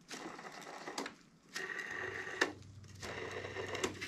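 Inline skate wheels spun by hand on their freshly serviced bearings, tested to check they turn freely after reassembly. Three spins, each a whirring hiss with a faint whine, broken by sharp clicks as the hand strikes the wheels.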